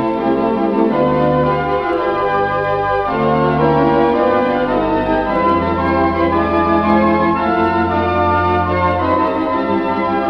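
The Trocadero Elephant & Castle's four-manual, 21-rank Wurlitzer theatre organ playing full sustained chords over long held bass notes that change every second or two, heard from a 1934 Columbia gramophone record.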